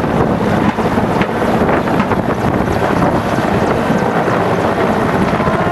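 Mi-17 twin-turbine helicopter hovering low and close, its rotor and engine noise steady and loud, with rotor downwash buffeting the microphone.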